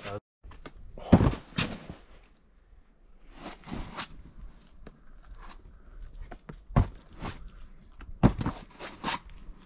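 A climber's hands and shoes on a boulder: a series of sharp slaps and knocks with scuffs between them, irregularly spaced, the strongest about a second in and again near the end.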